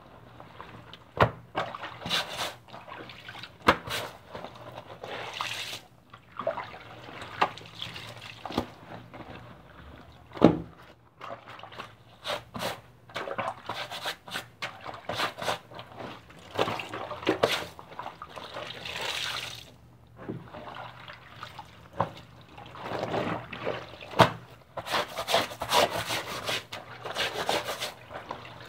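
Laundry being washed in water: irregular splashing and sloshing of wet clothes, with many short knocks.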